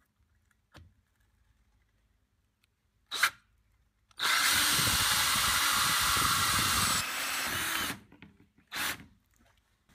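Power drill with a hole saw cutting a light hole through a truck's air dam: a brief blip of the drill about three seconds in, then about four seconds of steady cutting that stops near the end, followed by one more short burst.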